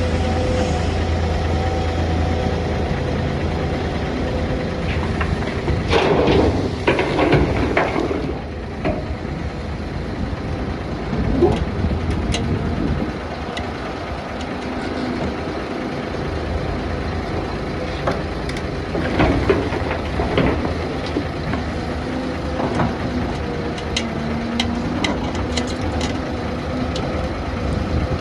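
Doosan DX hydraulic excavator's diesel engine running steadily under work. Louder bursts of clatter and scraping come about six seconds in and again near twenty seconds, with scattered sharp knocks later.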